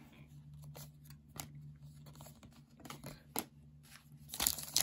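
Baseball cards being flipped and slid against each other, a scatter of light clicks and ticks. About four and a half seconds in, the foil wrapper of a trading-card pack starts crinkling loudly as it is handled for tearing open.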